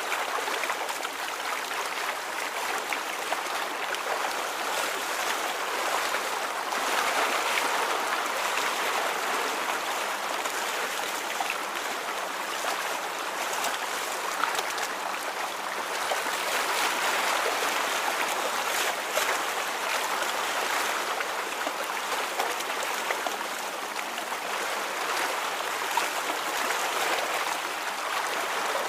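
Steady sound of flowing water, like a stream, swelling and easing slightly in level.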